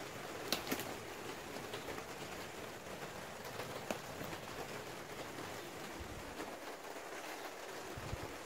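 Steady patter of rain on the plastic sheeting of a polytunnel, with a few light clicks near the start and again about four seconds in.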